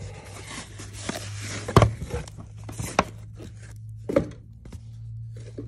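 Packing material and a cardboard shipping box rustling as they are pulled open, with a few sharp clacks of hard plastic graded-card slabs set down on a table; the loudest clack comes a little under two seconds in. A low steady hum runs underneath.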